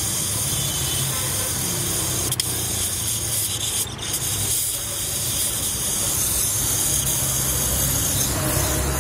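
Gas brazing torch flame hissing steadily while a copper refrigerant line is brazed to a refrigerator compressor, with one short click about two and a half seconds in.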